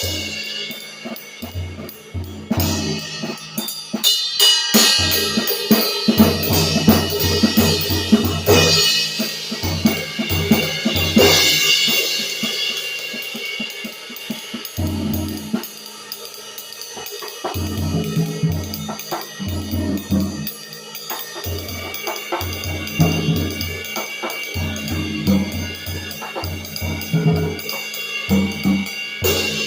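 Vintage Sabian ride cymbals played on a drum kit, with ride strokes and crash-like washes ringing over bass drum and snare hits. The cymbal wash builds heavily about a third of the way in, then thins to a lighter pattern over the kick drum.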